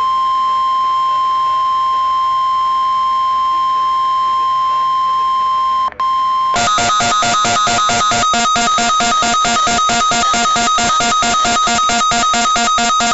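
NOAA Weather Radio 1050 Hz warning alarm tone: a loud, steady single pitch that is the signal for activating weather-radio receivers. About halfway through, it gives way to a rapidly pulsing electronic alarm beep, about four beeps a second, typical of a weather-alert receiver set off by that tone.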